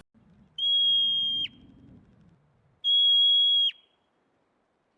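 Two steady, high-pitched whistle-like tones, each held for just under a second and ending in a quick drop in pitch, about two seconds apart.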